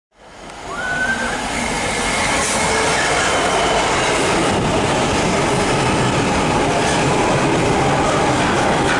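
Container freight train passing at speed: a steady, loud rumble and rush of wagons running over the rails, with a brief faint high wheel squeal about a second in.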